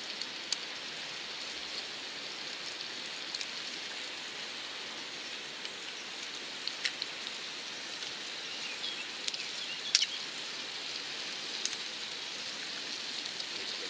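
Bacon frying in a pan, the fat sizzling steadily with scattered sharp pops.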